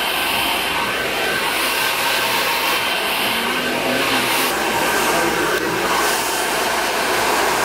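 Handheld hair dryer running steadily as a stylist blow-dries long hair.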